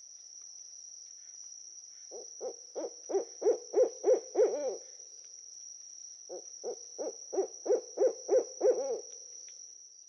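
An owl hooting in two quick runs of about nine short notes each, roughly three notes a second, the second run starting about six seconds in. A steady high-pitched insect drone sounds in the background.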